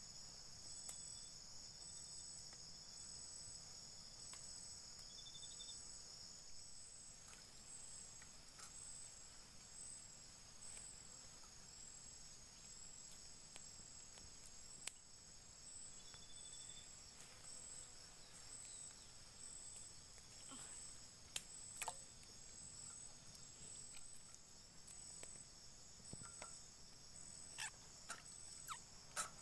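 Faint steady chorus of insects trilling high, one part pulsing evenly about once a second, with scattered sharp clicks, a few louder ones in the last third.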